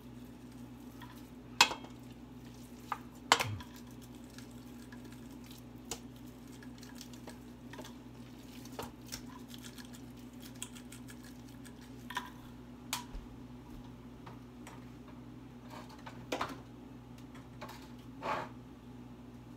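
Scattered sharp clicks and knocks of spice jars and hands against a large stainless steel stock pot as raw meat is seasoned in it, a few seconds apart, over a steady low hum.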